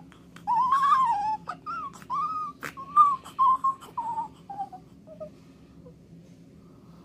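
A premature newborn girl's tiny, squeaky whimpering cries, like a little mouse: a string of short squeaks that each slide down in pitch, growing fainter and dying away about five seconds in. Her voice is small because she was born a month early and her lungs are not fully developed. A brief click comes midway.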